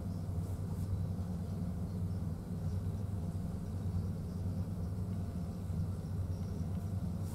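Steady low hum and rumble of the car ferry Akashia's engines while under way at sea.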